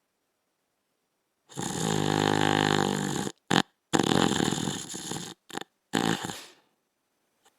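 A man snoring: after a short silence, one long pitched snore starts about a second and a half in, followed by shorter, noisier snorts and breaths.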